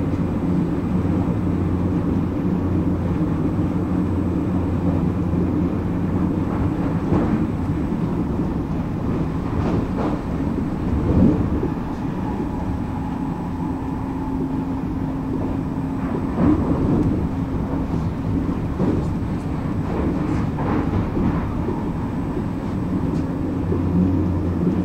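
Electric commuter train running along the track: a steady rumble of wheels on rail with a low hum. There are a few sharper knocks from the track, and a faint whine rises out of the rumble for a few seconds in the middle.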